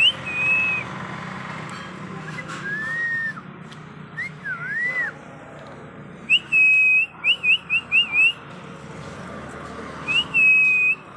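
A series of clear, high whistled notes: a held note at the start, a lower arching note and an up-down swoop in the first half, then a held note followed by a quick run of four or five short rising chirps, and another held note near the end.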